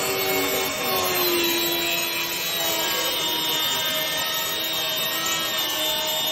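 Milwaukee M18 cordless track saw running steadily through a cut in a wooden slab along its guide rail.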